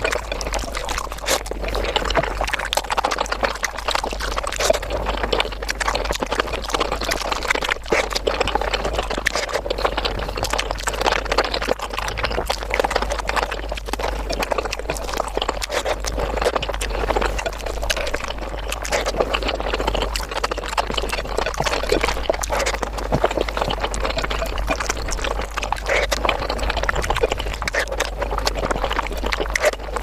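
Eating sounds of rice with chickpea curry eaten by hand, sped up to five times speed: wet chewing, lip smacks and fingers squishing the saucy rice run together into a dense, continuous patter of wet clicks.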